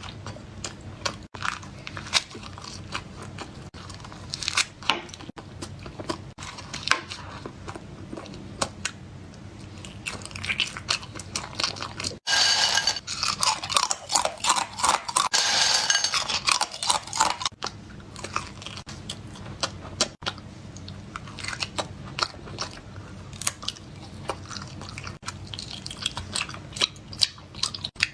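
Close-miked chewing and crunching of food, with many sharp crackly bites. The sound is louder and denser for a few seconds in the middle, and it breaks off abruptly several times between separate clips.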